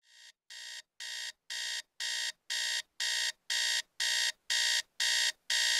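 Electronic wake-up alarm beeping about twice a second, growing louder over the first couple of seconds and then steady.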